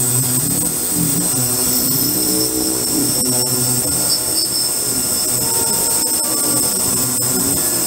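Ultrasonic cleaning tank in operation, its water agitated by the transducers: a steady high-pitched whine and hiss over a lower, slowly wavering hum.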